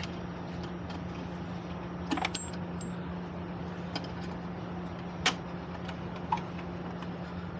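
A steady low mechanical hum, with a few sharp metallic clicks and clinks of handled tools and a brief high-pitched chirp a little over two seconds in.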